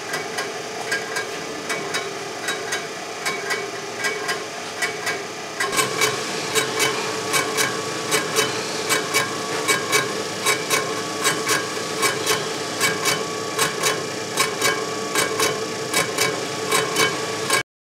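Storm Vulcan cylinder-head surfacing mill on auto feed, its spinning cutter taking a pass off the deck of a cast-iron Pontiac 455 cylinder head. There is a steady machine hum with a regular click about two or three times a second as the cutter strikes the head. It gets louder about six seconds in and cuts off suddenly near the end.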